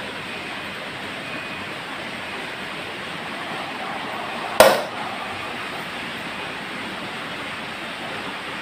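Electric pedestal fan with clear plastic blades running, giving a steady whoosh of air. About halfway through there is a single sharp knock.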